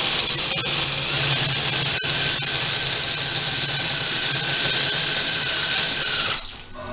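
Hand-held electric drill running for about six seconds as it enlarges a hole, the bit squealing steadily over the motor's hum; it stops shortly before the end.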